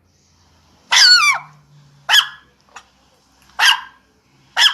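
Dog barking: four barks, the first a longer yelping bark falling in pitch, then three short sharp barks a second or so apart.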